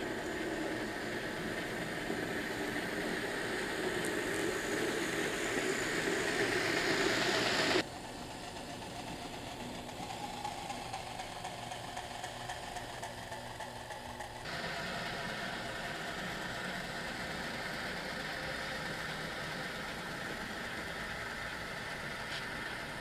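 HO-scale model diesel switchers running on the layout, a steady mechanical engine-like running sound. It grows louder over the first several seconds as the locomotives come toward the camera, drops suddenly about eight seconds in, and comes back up about six seconds later.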